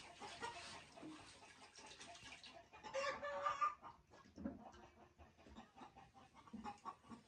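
A rooster calls once, a held call of about a second near the middle, with faint scattered sounds around it.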